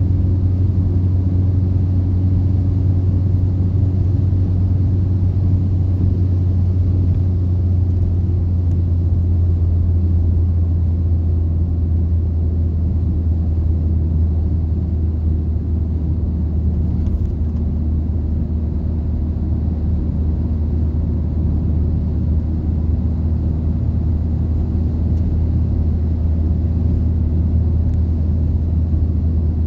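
Steady low drone of a car cruising at highway speed, heard inside the cabin: road and engine noise with a faint hum above it, unchanging throughout.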